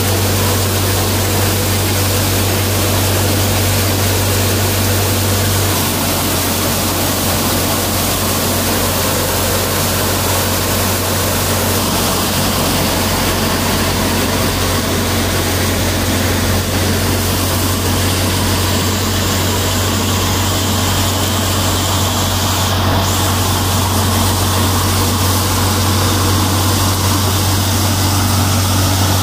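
Tractor-driven multi-crop thresher running steadily under load as crop is fed in. A Kubota MU5501's 55 hp diesel engine powers the threshing drum and fans, giving a constant low engine drone under a loud, even rush of machinery noise.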